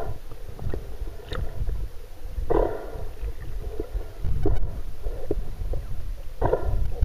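Underwater sound picked up by a camera below the surface: a low churning rumble of moving water, broken a few times by short gurgling bubble bursts and small ticks.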